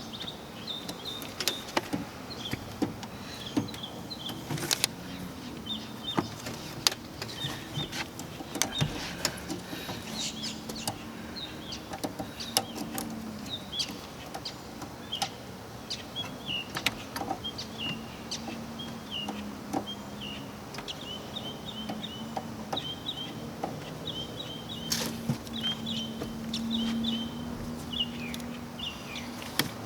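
Scattered clicks and knocks of hands working a D3S HID headlight bulb's connector and the parts around it, deep in a car's engine bay behind the headlight. Birds chirp in quick runs in the background, and a low steady hum runs underneath.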